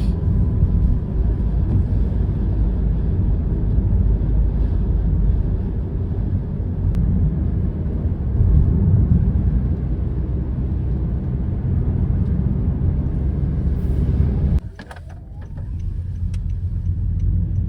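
Car driving at steady speed, with a low, steady rumble of engine and road noise heard inside the cabin. It drops away abruptly near the end, then builds back up.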